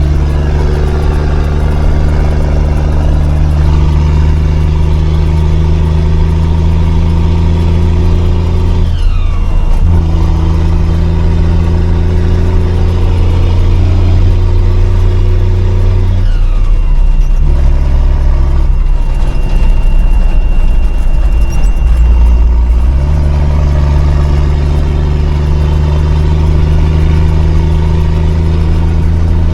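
5-ton military truck's engine running steadily under load while driving, its note breaking and changing pitch about nine seconds in, again around seventeen seconds and once more near twenty-three seconds.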